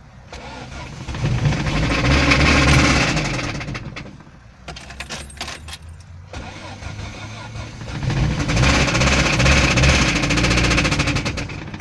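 VAZ 21083's four-cylinder petrol engine revved up twice from idle and let drop back, with the knock that the owner is demonstrating as the engine's fault.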